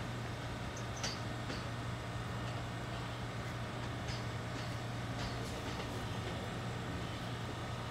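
New York City Subway R211 train approaching, a steady low rumble from the tracks with a few faint high ticks and squeaks over it.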